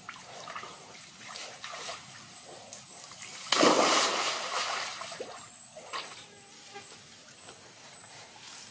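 A person dropping from a tree branch into a pool and hitting the water with a loud splash about three and a half seconds in, followed by a couple of seconds of sloshing water that dies away.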